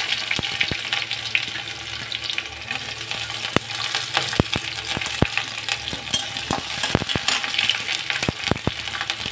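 Chopped onions sizzling as they fry in hot oil in a metal kadhai, with a metal spatula scraping and clicking against the pan at irregular moments as it stirs them.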